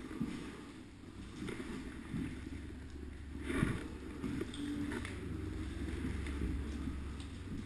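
Footsteps and rustling gear of a player walking through an empty building, with a few sharper steps or knocks. Under them runs a steady low rumble of handling and wind noise on the head-mounted camera.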